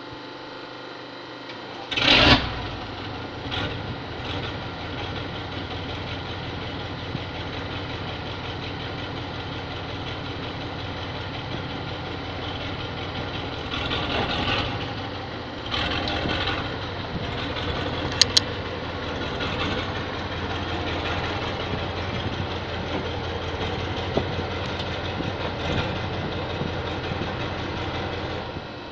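A truck engine starts about two seconds in and then runs steadily at idle, with a couple of brief rises in level midway.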